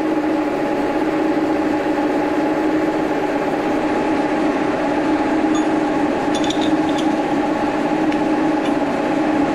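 Vertical milling machine running with its end mill at the edge of a steel workpiece held in a vise: a steady mechanical hum with several constant tones, and a few faint light ticks about six to seven seconds in.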